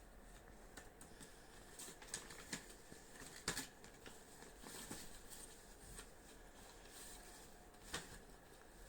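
Faint rustling and crinkling of packaging and clothes being handled, with scattered sharper crackles, the loudest about three and a half seconds in and another at eight seconds.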